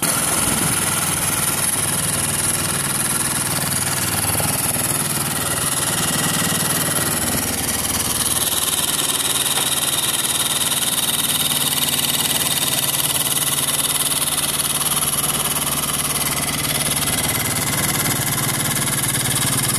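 High-pressure (10,000 PSI) hydraulic pump switched on and running steadily, a constant hum under a loud hiss. It is barely building pressure, under about 100 PSI, as the fluid leaks freely past the nipple cups.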